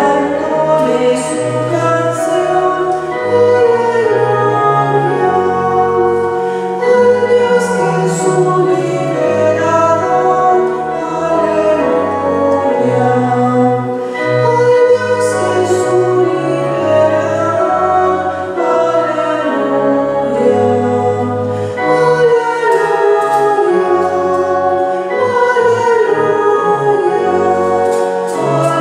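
Viscount Cantorum VI digital liturgical organ playing a hymn in held chords that change about once a second over a stepping bass line, with a choir sound carrying the melody.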